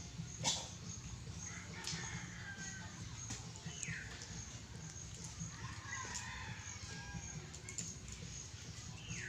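Chickens clucking and calling in short, gliding calls, over a steady low hum, with one sharp click about half a second in.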